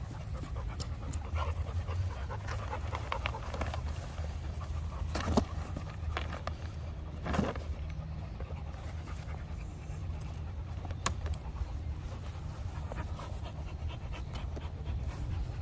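A golden retriever panting close by, while a folding camping chair is opened out: fabric rustling and the metal frame and canopy giving a few sharp clicks and knocks.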